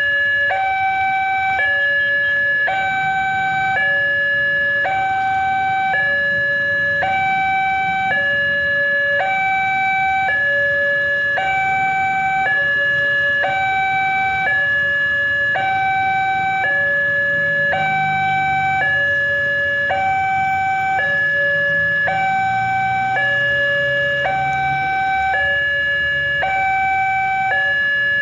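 Railway level-crossing warning alarm sounding steadily: an electronic two-tone signal alternating between a lower and a higher tone, each held about a second, warning that a train is approaching.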